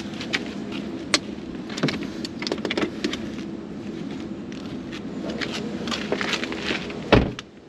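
Racing harness webbing rustling, with its metal buckle hardware clicking and jingling as the straps are handled and pulled through. About seven seconds in a car door shuts with one heavy thump.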